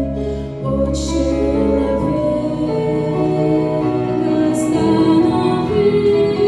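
Slow, gentle Christian song: held chords over a deep bass, with a woman singing.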